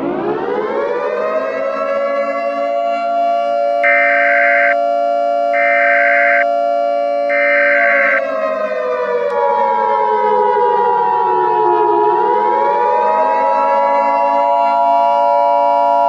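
Outdoor civil defense warning siren winding up to a steady wail, then sliding down in pitch about eight seconds in and winding back up about twelve seconds in. Three short, higher beeps sound between about four and eight seconds in, and a second steady, higher tone joins about nine seconds in.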